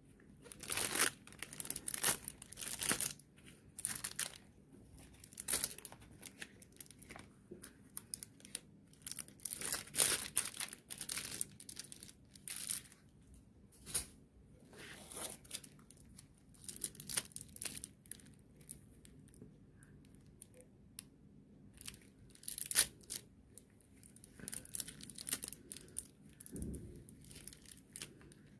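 Irregular crinkling and rustling as rubber-gloved hands handle makeup brushes, their clear plastic sleeves and a brush case, with brush bristles stroked across the glove.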